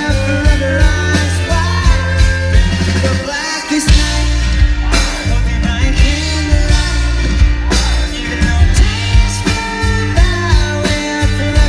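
Live rock band playing with a male lead singer singing into a microphone over drums, bass and guitar, loud from close to the stage. The bass drops out briefly about three and a half seconds in, then comes back.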